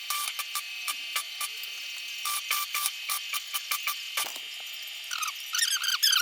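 A series of sharp, irregular clicks over a steady high-pitched hum, with a rapid squeaky scraping starting near the end.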